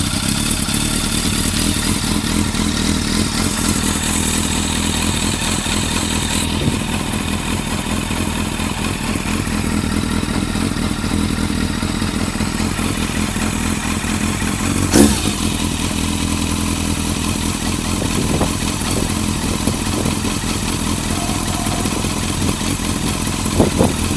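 Yamaha FZS600 Fazer's inline-four engine idling steadily, with the uneven running its owner calls a rough idle. A single sharp knock cuts through about two-thirds of the way in.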